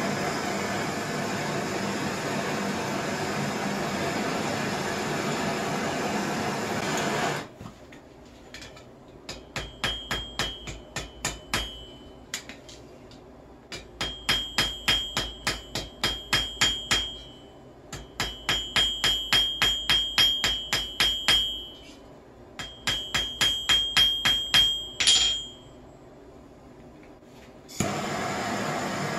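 Handheld gas torch hissing steadily as it heats a small brass blank held in tongs. About seven seconds in, the torch gives way to a ball-peen hammer striking the hot brass on a steel anvil, in four runs of quick ringing blows about four a second, hammering the brass down to thicken it. The torch hisses again near the end.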